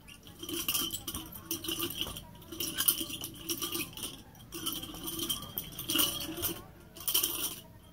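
Stainless steel nunchaku swung and caught, its chain links rattling and jingling in short bursts about once a second.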